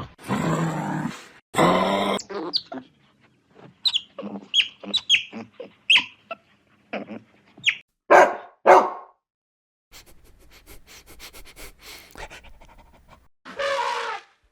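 A dog barking and yelping in short bursts, with two louder barks past the middle. A quieter run of rapid ticks follows, then one more call near the end.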